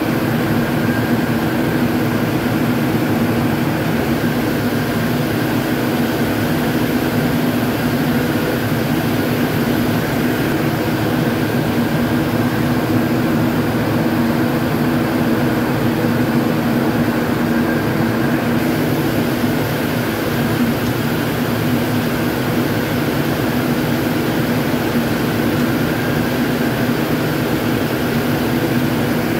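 Saurer Zinser 72 XL ring spinning frame running, its spindles turning at speed: a loud, steady machine hum with a few constant tones that does not change.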